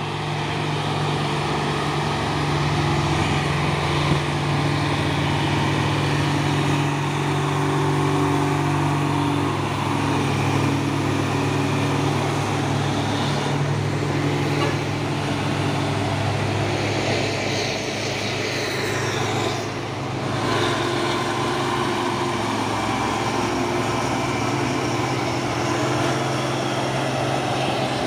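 Heavy diesel trucks climbing a steep hill, their engines running in a steady low drone with no sharp changes.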